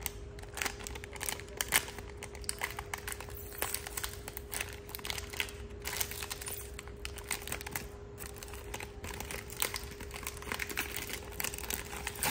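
Crinkling and crackling of a gold metallic plastic snack sachet being handled and pulled open at its sealed edge, in dense irregular rustles throughout.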